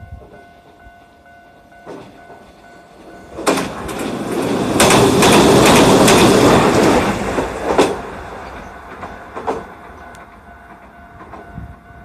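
Hiroden 3950-type "Green Liner" articulated tram passing close by. Its running noise builds from about three seconds in, is loudest at mid-pass and fades away, with sharp wheel clicks over the rail joints.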